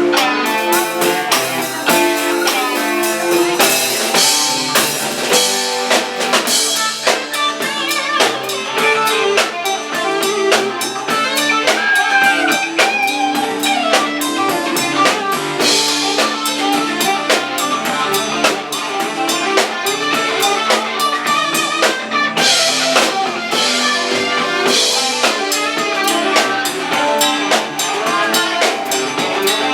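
Live rock band playing: electric guitar over a drum kit with steady beat and cymbal crashes, no vocals.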